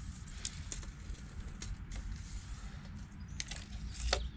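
Steel tape measure being pulled out and laid along a timber railway sleeper: scattered small clicks and rattles, with two sharper clicks near the end, over a low steady rumble.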